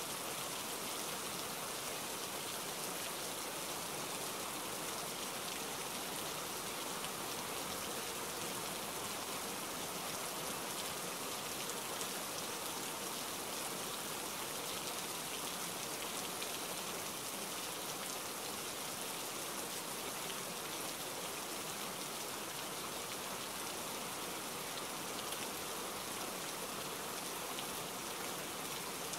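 Rain falling steadily, an even hiss of drops with no change in strength.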